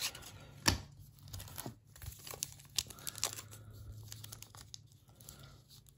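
Trading-card pack wrapper being handled: soft crinkling with scattered sharp crackles, the strongest about a second in.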